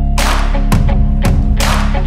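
Background music with a steady beat: sharp snare-like hits over sustained deep bass notes, two heavy hits coming shortly after the start and about three-quarters of the way through.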